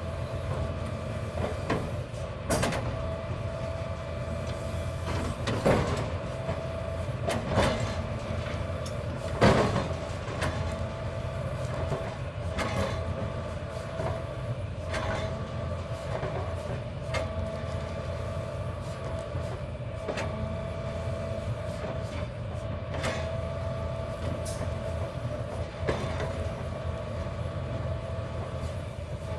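Hitachi hydraulic excavator running steadily, a low engine rumble with a constant whine over it. It is broken by a dozen or so sharp metallic clanks and knocks of steel tubing, the loudest about nine and a half seconds in.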